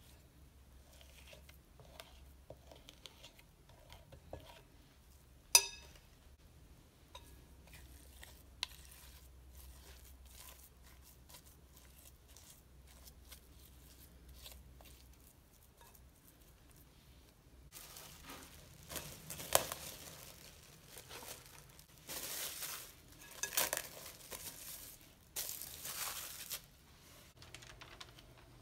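Metal spoon scraping through thick cookie dough in a glass bowl, with a few clicks against the glass, the sharpest about six seconds in. In the second half, parchment paper crinkles and rustles in several loud bursts as it is laid out to line a metal baking tray.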